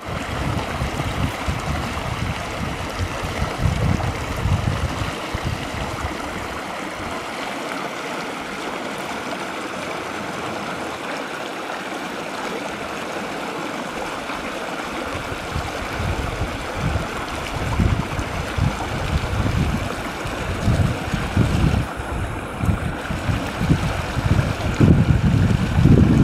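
River water rushing steadily through channels in granite rock. Wind buffets the microphone in low gusts for the first few seconds and again through the last ten seconds, strongest near the end.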